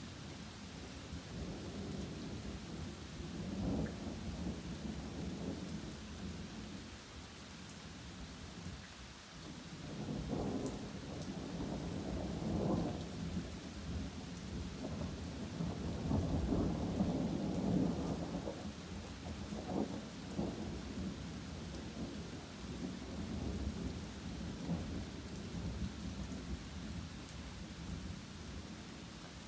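Steady rain with rolling thunder: long low rumbles swell and fade one after another, the loudest a little past halfway.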